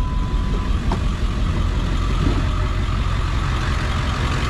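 Truck engine running steadily.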